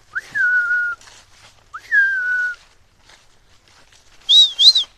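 A person whistling: two long whistles, each snapping up into a held note that slowly sinks, then a quick pair of higher, sharper up-and-down notes near the end.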